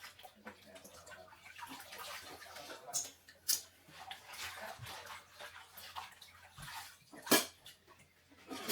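Water splashing and running as fresh spinach leaves are washed by hand, with a few sharp knocks, the loudest about seven seconds in and at the end.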